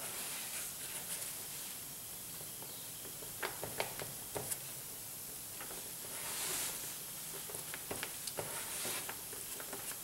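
Plastic spreader stirring and smearing short-strand fiberglass body filler (Evercoat Everglass) with its cream hardener on a mixing board: a soft, steady scraping hiss with scattered light clicks and ticks.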